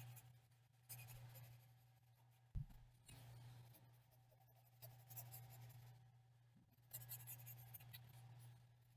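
Faint scratching of a graphite pencil's side shading on notebook paper, in short spells of strokes over a steady low hum. There is one soft low bump about two and a half seconds in.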